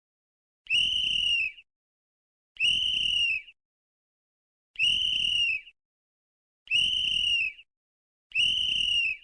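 Sports referee's whistle blown in five short, sharp blasts, each a little under a second, about one every two seconds, at a steady high pitch.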